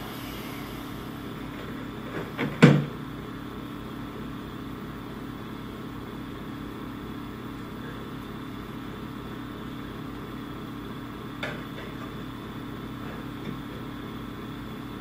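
Steady low electrical hum with a few knocks about two and a half seconds in, the last a sharp thud and the loudest sound, and two faint clicks later on.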